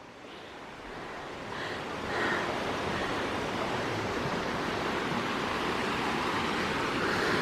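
Rushing water of a waterfall, a steady noise that grows louder over the first two seconds and then holds.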